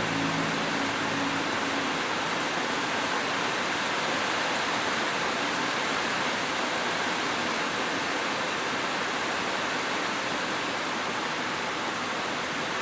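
Steady rain falling, an even hiss with no distinct drops or thunder.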